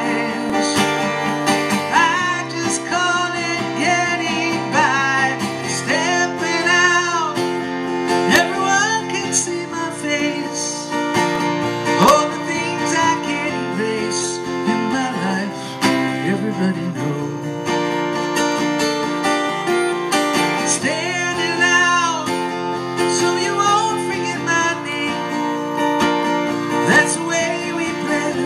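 Live solo performance: a steadily strummed acoustic guitar with a man's voice singing over it, the vocal line rising and wavering at several points.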